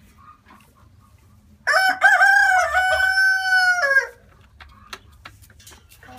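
A rooster crowing once: a single loud call of a little over two seconds that holds its pitch and drops off at the end, with faint clicks and rustles around it.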